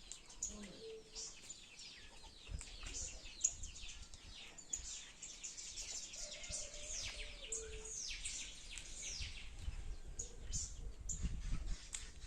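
Many small birds chirping, a dense chorus of short falling chirps. A low rumble rises near the end.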